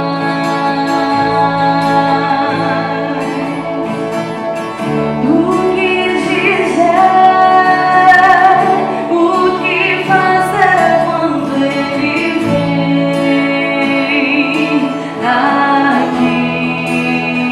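A worship band playing a gospel song live: a female voice singing over acoustic guitar, bass and keyboard.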